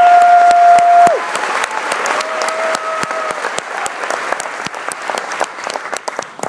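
Theatre audience in a standing ovation, clapping and cheering. A long held high whoop from the crowd cuts off about a second in, and a shorter one comes about two seconds in. The applause thins out toward the end.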